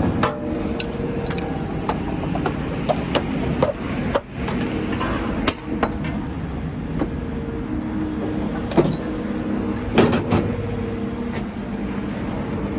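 A motor vehicle engine running steadily, with scattered sharp metal clanks and knocks from scrap being handled, the loudest near the end.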